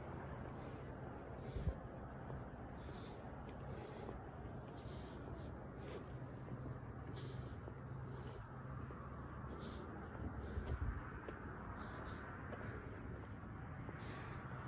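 Crickets chirping in a steady repeating rhythm, with a faint low hum underneath that fades out about two-thirds of the way through, and a couple of faint knocks.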